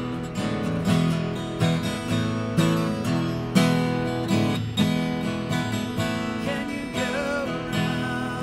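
Guitar music: strummed chords in a steady, unhurried rhythm, with a wavering higher note joining near the end.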